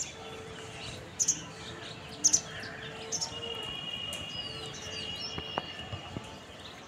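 Birds chirping: short high chirps about once a second over steady outdoor background noise, with a thin steady high tone held from about three seconds in.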